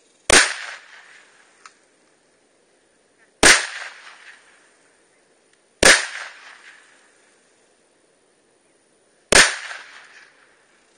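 Four single shots from an AR-15 rifle, spaced about two to three and a half seconds apart, each trailing off in an echo that lasts about a second.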